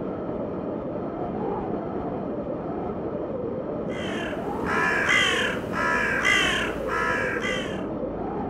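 A crow cawing five times in quick succession, starting about halfway through, with harsh calls roughly two-thirds of a second apart over a steady background noise.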